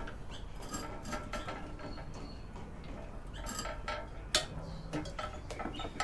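Thick copper wire being straightened by hand and fed into a manual wire stripper: light metallic clicks, knocks and rattles, with one sharper click a little past four seconds in.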